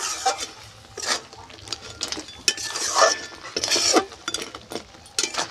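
A flat metal spatula stirring a crab curry in a large aluminium kadai, scraping and clinking against the pan in irregular strokes.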